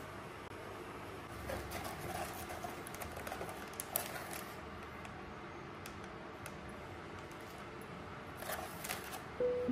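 Paper tea-bag sachets rustling and tapping as they are fingered through in a cardboard box and one is pulled out, in two short spells with a few light clicks. Soft piano music comes in near the end, louder than the rustling.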